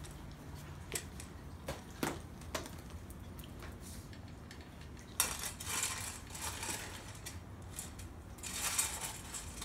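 Dry dog kibble clattering in a food bowl as dogs eat from it: a few sharp clicks early on, then two longer spells of crunching and rattling about five and about eight and a half seconds in.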